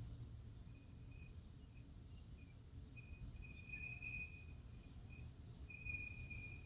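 A constant, faint high-pitched tone, the 'frequency' heard inside the home, holds steady throughout, with short faint chirps coming and going beneath it.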